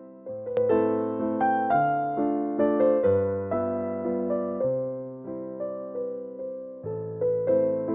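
Background music: a soft electric piano playing a gentle, evenly paced line of notes and chords, each note fading before the next.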